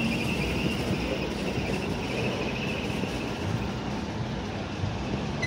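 Column of WWII-era military jeeps driving slowly past, their engines running steadily at low speed.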